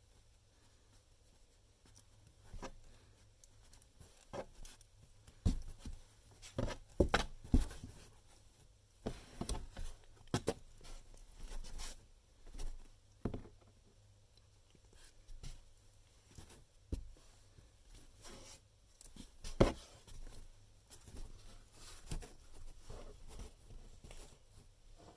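Irregular scratching, scraping and tapping on a cardboard box, some strokes sharp and loud, with quiet gaps between flurries.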